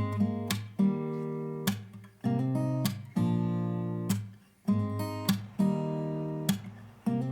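Background music: acoustic guitar strumming chords, each chord struck sharply and left to ring and fade before the next.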